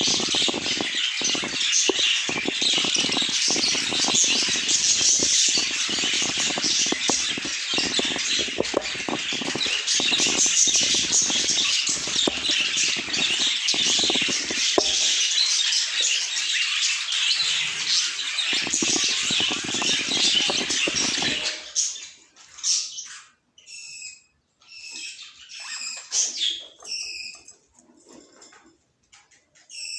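A flock of budgerigars chattering and warbling densely, with wing flapping. About two-thirds of the way through, the chatter cuts off abruptly to a few separate budgie chirps with quiet gaps between them.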